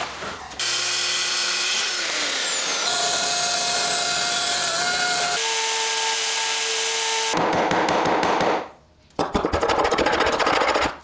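Bosch electric router whining at high speed as it cuts wood, its pitch changing between clips, with one spin-down about two seconds in. From about seven seconds in, a rougher scratching, rubbing noise on wood takes over, with a short break near the end.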